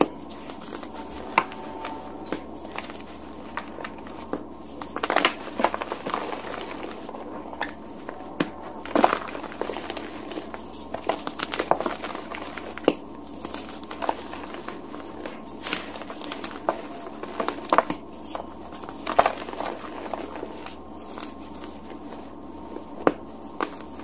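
Dyed gym chalk blocks crushed and crumbled between the fingers: dense, irregular crunching and crackling, with a louder snap every few seconds as a block breaks.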